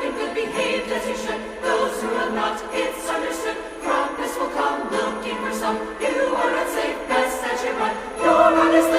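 Background music with jingle bells ringing over a choir singing; the music swells louder near the end.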